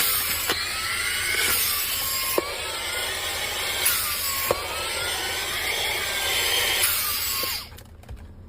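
Portable handheld vacuum cleaner running with a loud hiss, its pitch sweeping up and down every second or two, with a few sharp clicks along the way. It stops suddenly about seven and a half seconds in.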